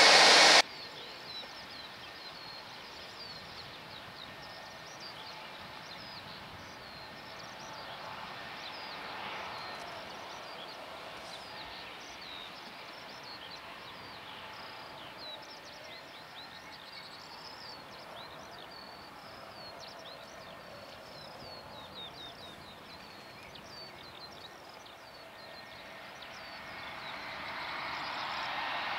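Loud jet engine noise from the Boeing 757 stops suddenly about half a second in. Small birds then chirp and twitter over a faint, steady jet hum. Near the end the jet's engines grow steadily louder as the airliner taxis closer.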